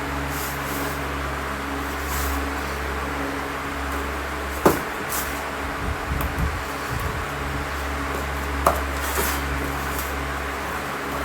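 Packages being handled on a surface over a steady low hum: two sharp clicks or knocks, one about four and a half seconds in and one near nine seconds, with soft bumps and light rustling between them.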